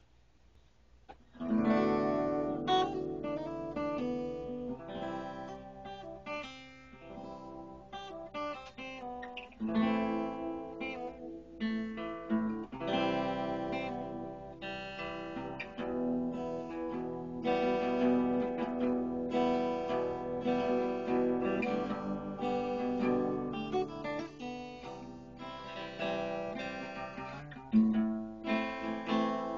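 Acoustic guitar playing an instrumental intro, chords strummed and picked, starting about a second and a half in.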